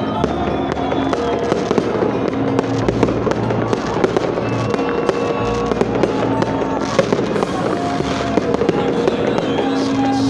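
Fireworks going off: a dense run of quick pops and crackles that keeps going throughout.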